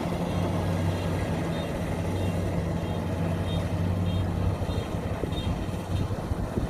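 Kubota DC-93 combine harvester's diesel engine running steadily as it works a flooded rice paddy, the hum fading about two-thirds of the way in. Faint high chirps repeat a little under twice a second over it.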